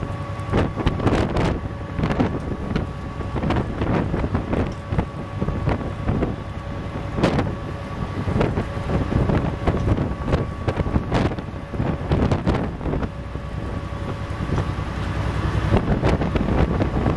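Gusty wind buffeting the microphone in uneven blasts, over the low hum of a car ferry's machinery and a faint steady whine that fades near the end.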